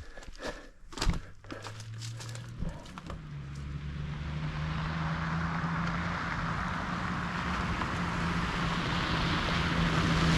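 A few clicks and a thump, then a Toyota LandCruiser Troop Carrier's engine starts about a second in and runs. From about three seconds the vehicle moves off, and its engine and road noise grow steadily louder.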